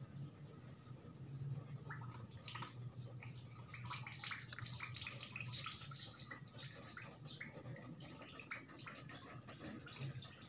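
Water dripping from freshly boiled instant noodles draining in a plastic colander: faint, irregular patter of drops that thickens about two seconds in, over a steady low hum.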